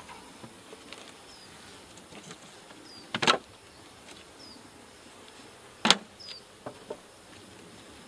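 Two sharp knocks of beehive equipment being handled, about two and a half seconds apart, then a few lighter clicks, as frames, feeders and lids are moved in and out of the hive boxes. Underneath is a faint, steady hum of honeybees.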